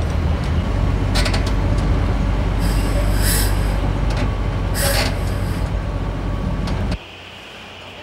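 Crane engine running steadily with a low rumble, with several short hisses of air over it. The engine sound cuts off abruptly about seven seconds in, leaving a quieter background.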